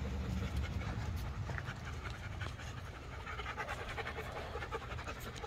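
Rottweiler panting, a quick run of short breaths.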